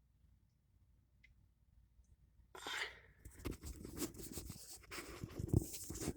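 Near silence, then from about two and a half seconds in, a run of irregular scraping, rustling and light clicks.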